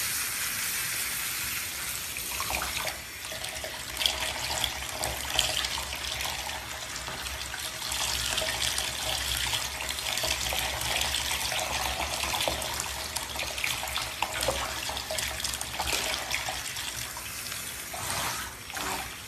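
Handheld shower head spraying water over a cat's fur and into a bathtub: a steady hiss of running water, with a few sharper splashes about four and five seconds in.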